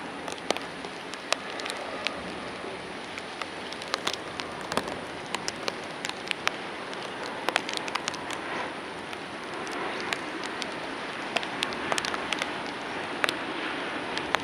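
Rain falling: a steady hiss with many sharp drops ticking irregularly close by.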